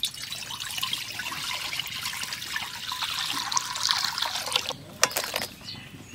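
Water poured in a steady stream into an empty metal kadai, splashing and filling the pan; the pouring stops near the end, followed by a few sharp knocks.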